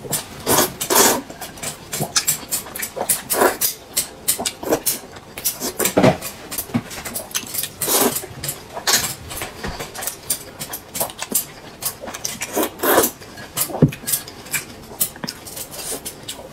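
Repeated slurps of noodles from a bowl of noodle soup, some in quick pairs, with smaller chewing and mouth noises between them.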